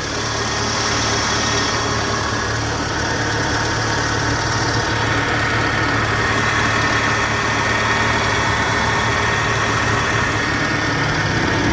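Volkswagen Gol G4 engine idling steadily, its accessory belt running on a newly replaced tensioner without the earlier cricket-like chirp: the belt noise from a badly centred, low-quality idler bearing is cured.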